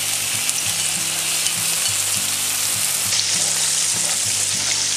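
Diced fresh tomatoes sizzling in hot oil with sautéed onions in a frying pan as they are pushed in and stirred: a steady, even sizzle.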